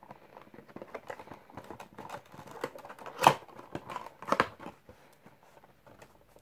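Cardboard Funko Pop box being handled and its end flap opened by hand: a run of small card clicks, taps and rustles, with two louder sharp knocks a little past three and four seconds in.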